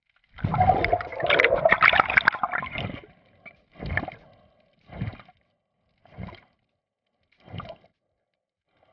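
Water splashing around a free diver at the surface: about three seconds of churning splashes, then four separate splashes spaced a little over a second apart, like swimming strokes or fin kicks.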